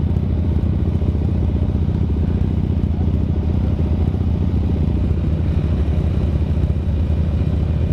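Motorcycle engine idling steadily, an even low pulsing rumble with no revving.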